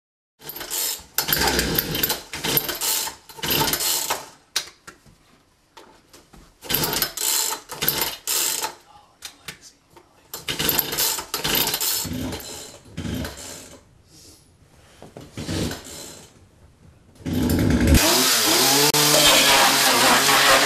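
Gasoline chainsaw running in short bursts, revving up and dropping back. About 18 seconds in it goes to running continuously at high revs.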